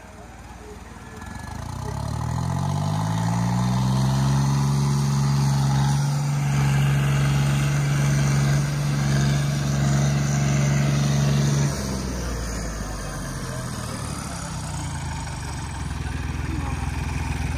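Diesel tractor engines pulling against each other in a chained tug-of-war. The revs rise over about two seconds and are held steady under heavy load for about eight seconds. They drop back about twelve seconds in and run lower, climbing a little near the end.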